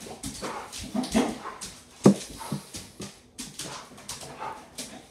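A dog whimpering and giving short barks, with one sharp, loud call about two seconds in.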